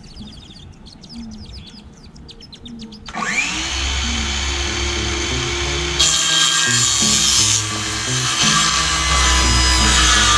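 A power saw starts about three seconds in, its motor whining quickly up to speed, then runs steadily as it cuts through the wooden panel of a road case. Background music with a bass line plays underneath.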